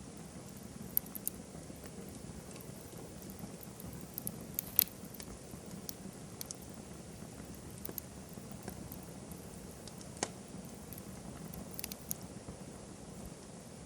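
Wood campfire crackling, with sharp pops at irregular intervals over a low steady hiss. The loudest pop comes about five seconds in and another about ten seconds in.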